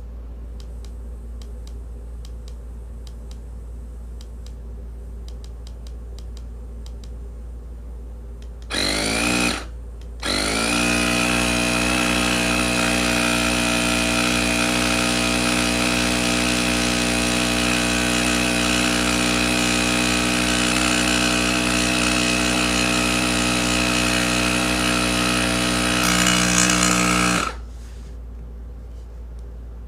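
Cordless electric tire inflator's compressor running: a few faint clicks, then the motor spins up with a rising whine about nine seconds in, cuts out briefly, restarts and runs steadily for about seventeen seconds before stopping suddenly, pumping air into an e-bike tire.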